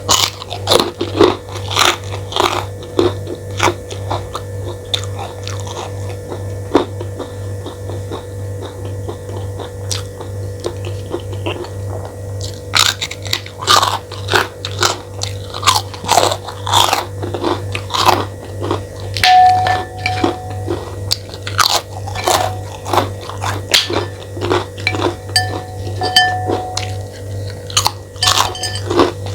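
Close-miked chewing and biting of a mouthful of nasi goreng picung (fried rice seasoned with keluak), a quick irregular run of wet, crunchy mouth clicks over a steady low hum.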